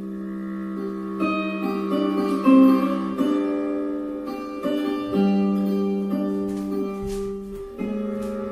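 Instrumental music on Portuguese guitar: a slow melody of plucked notes that ring on, a new note or chord about every second.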